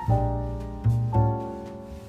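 Background piano music: single struck notes and chords that each fade away.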